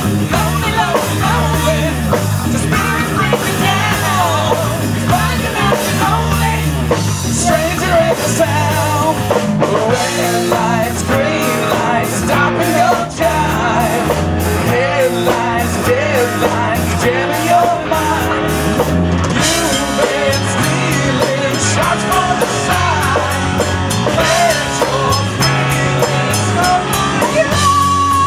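Live rock band playing electric guitars and a drum kit, loud and steady.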